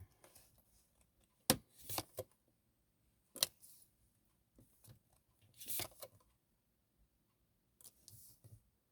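Tarot cards being handled and laid out: three sharp clicks, then two brief papery swishes.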